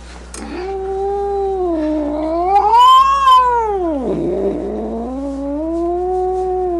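A domestic cat giving a long, drawn-out angry yowl. It climbs to its highest point about three seconds in, sinks to a low growl just after the middle, then rises again into a second wavering moan: the warning call of an upset cat.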